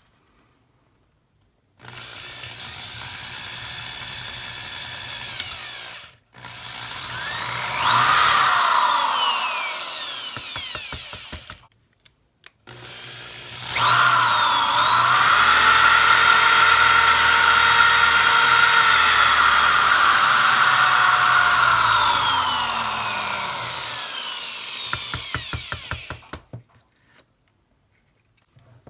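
Electric drill with a 5/32-inch bit drilling out the rivet of a die-cast toy car's base, over a 5/64-inch pilot hole. It runs in three goes: a short one, a second that builds up and eases off, then a long steady run of about twelve seconds that winds down with a stutter near the end.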